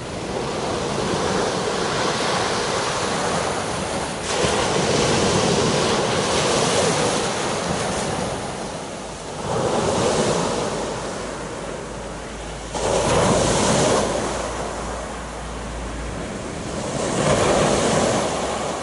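Sea surf breaking on the beach, swelling and falling back every few seconds, with wind buffeting the microphone.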